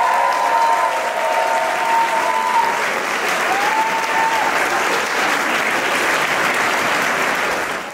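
Audience applauding and cheering, with one long held cheer at the start and another rising cheer about three and a half seconds in.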